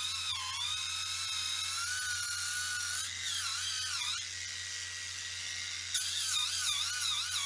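Kemei electric callus remover's motor spinning its grinding roller against the sole of a foot, a high whine that wavers up and down in pitch as it is worked over the hard skin. About four seconds in it settles to a quieter steady tone for a couple of seconds, then the wavering whine comes back.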